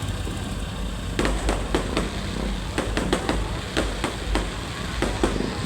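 Fireworks going off in a display: sharp bangs and cracks begin about a second in and come irregularly, several a second, over a steady low rumble.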